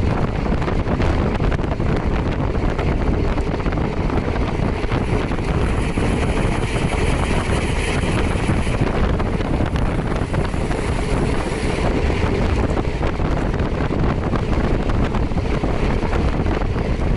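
Wind buffeting the microphone of a moving motorcycle, with the engine and road noise running underneath. A brighter hiss comes up for a few seconds in the middle.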